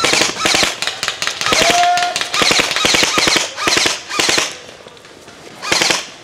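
Airsoft electric rifle firing on full auto: several rapid bursts of sharp snapping shots over the first four and a half seconds, then one more short burst near the end.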